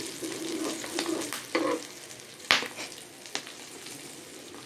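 Spiced egg poaches sizzling and spitting as they fry in oil in a non-stick pan. A few sharp clicks of a metal spatula against the pan break through the sizzle, the loudest about two and a half seconds in.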